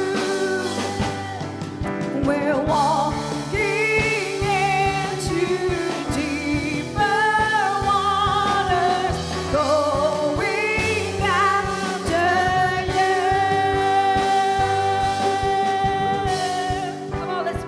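Live church worship music: a singer holds long, wavering notes over a band's sustained chords and a steady beat.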